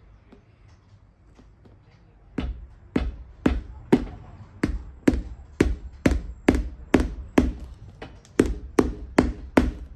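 Cobbler's hammer driving brass tacks into a leather boot heel: a steady run of sharp blows, about two a second, starting a couple of seconds in.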